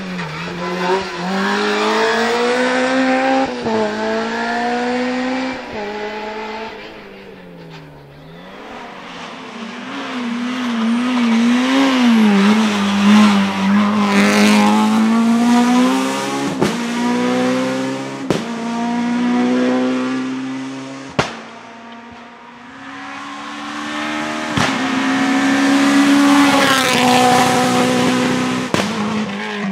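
Naturally aspirated Honda K20 four-cylinder engines of Civic Type-R EP3 race cars accelerating hard uphill one after another, the engine note rising through each gear and dropping at the shifts, swelling as each car passes and fading away.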